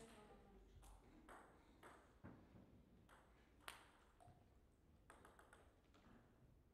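Faint, irregular pings of a table tennis ball bouncing, as the server bounces it before serving.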